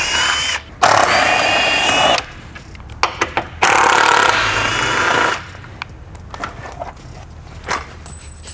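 Handheld power tool running in three bursts of about one and a half seconds each, with a high whine; quieter clicks and knocks follow.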